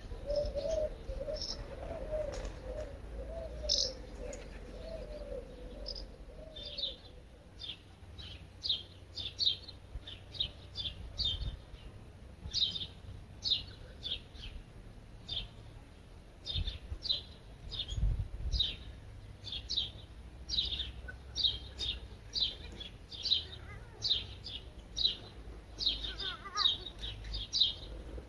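Songbird chirping: short, high chirps repeated about twice a second. A lower, wavering call repeats underneath during the first six seconds or so.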